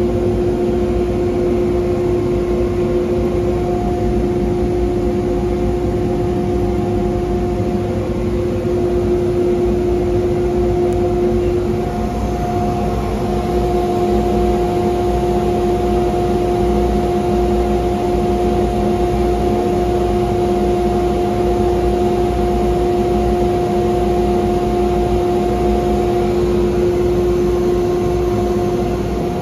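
Gantry CNC router spindle running while it routes grooves into a plywood sheet: a steady whine in two pitches over a continuous loud rushing noise, with no change in speed.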